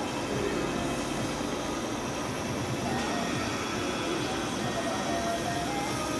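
Machinery running steadily: a continuous mechanical rumble and hiss with faint steady whine tones. A faint wavering tone comes in about halfway through.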